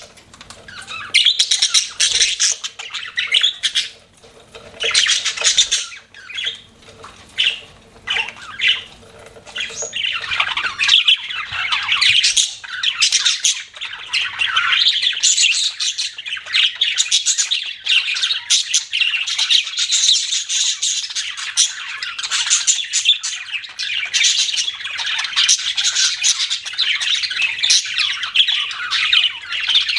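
Pet budgerigars chirping and chattering. It comes in short scattered bursts for about the first ten seconds, then turns into a dense, near-continuous chatter.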